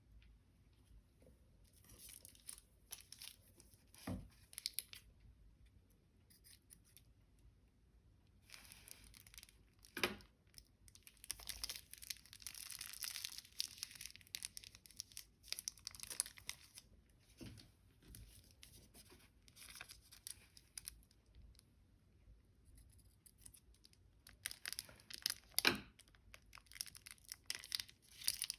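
Glossy slime being handled, with sticky crackling and crinkling and a few sharper pops.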